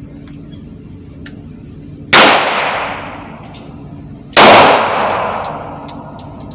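Two shots from a Glock 26 Gen 4 9mm pistol, about two seconds apart, each with a long echoing tail. A few light metallic ticks follow near the end.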